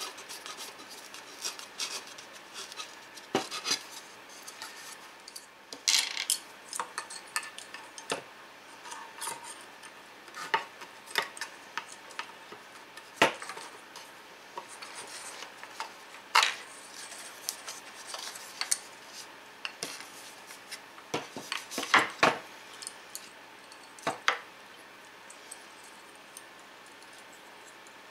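Irregular clicks, taps and clinks of small hardware and a wooden switch panel being handled on a workbench, as switches with threaded retaining rings are fitted and crimp spade connectors handled, with a few louder knocks; the sounds thin out near the end.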